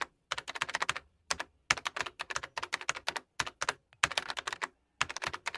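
Keyboard typing: quick runs of key clicks broken by short pauses, the typing sound that goes with captions appearing letter by letter.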